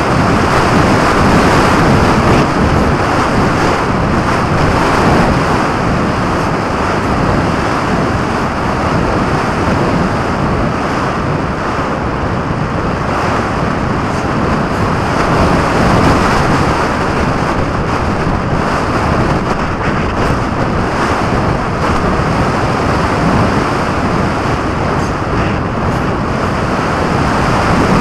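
Airflow rushing over the microphone of a camera carried on a radio-controlled glider in flight: a loud, steady wind noise with no motor tone, swelling and easing a little as the model's speed changes.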